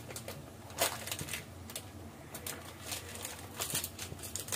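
Pot of sinigang broth simmering, with irregular small bubbling pops and crackles over a low steady hum.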